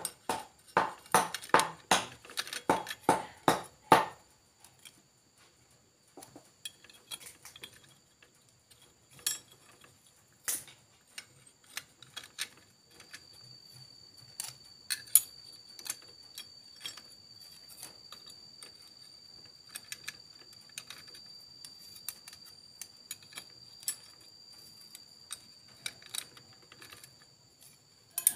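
Metal clutch plates and friction discs of a Suzuki Satria 120R two-stroke engine clinking against each other and the clutch hub as they are fitted by hand. A quick run of clinks in the first four seconds, then scattered single clicks.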